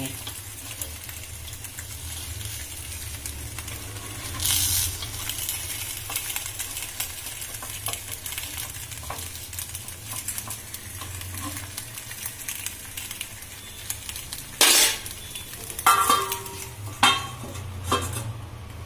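Semolina appe sizzling gently in an appe pan as they are turned one by one, with soft scrapes and clicks of the utensil against the pan. Near the end, several sharp metal clanks as a steel lid is set on the pan.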